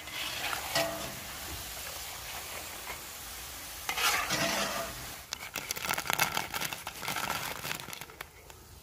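Potato chips deep-frying in hot oil in a large iron karahi, sizzling steadily while a perforated metal skimmer stirs through them. The sizzle grows louder about four seconds in, followed by a run of sharp crackles and scrapes.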